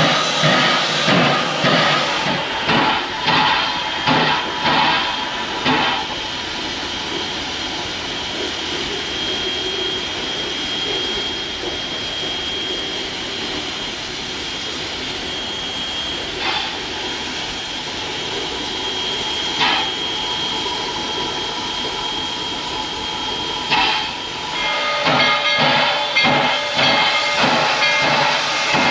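Steam locomotive working, its exhaust beats coming about two a second. After about six seconds the beats stop and a steady hiss of steam carries on with a faint high whistling tone. Near the end the exhaust beats start again.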